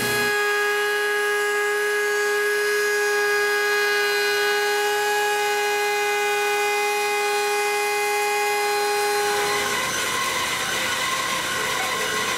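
Table-mounted router spinning at speed, a steady high whine that holds one pitch. About nine and a half seconds in the whine stops and a rougher, noisier machine sound takes over.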